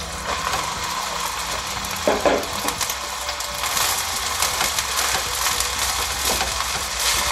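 Cooked rice tipped into a hot wok of frying carrots and green onions, then pushed around with a wooden spatula: a steady sizzle, with the spatula scraping and knocking against the wok a few times, about two seconds in and again near the end.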